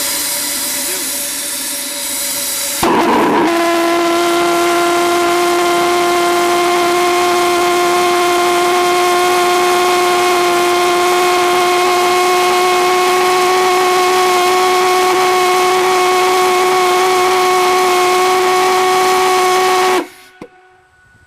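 Propane-fuelled valveless pulsejet (Lady Anne Boleyn Rev.07) being started: a loud hiss of starting air, then the engine catches with a sudden bang about 3 seconds in. It runs on as a loud, steady, buzzing drone, its pitch creeping slightly upward, and then quits abruptly near the end. The uploader traced this poor running-out to inadequate propane fuel pressure for the small fuel tube.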